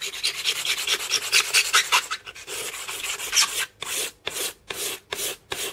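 Razor blade scraping across the end grain of an oak chopping board, taking off fine shavings. The strokes are quick and run together at first, then from about three and a half seconds in come as separate back-and-forth strokes, about two or three a second.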